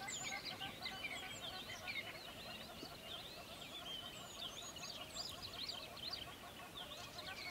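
A dense chorus of many birds calling at once: quick rising and falling chirps over a mass of shorter repeated calls, with no pause.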